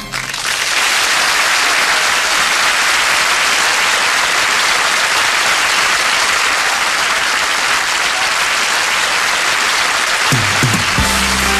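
Studio audience applauding steadily. About ten seconds in, the band starts playing again under the applause.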